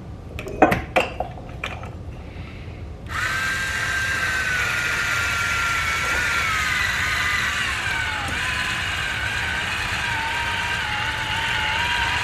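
A few clicks and knocks, then about three seconds in an electric wine opener's motor starts up with a steady whine. Its pitch sinks partway through and settles lower as it drives the spiral into the cork and draws the cork up out of the bottle.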